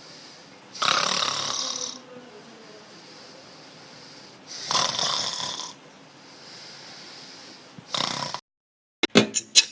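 A person snoring loudly: two long snores about four seconds apart and a short one near the end, with a faint hiss between them. The sound cuts off abruptly, and a fast run of sharp beats starts just before the end.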